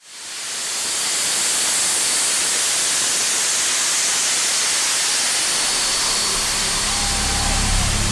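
A loud steady hiss of noise that fades in over the first second, opening an electronic music track; low bass tones come in about six seconds in.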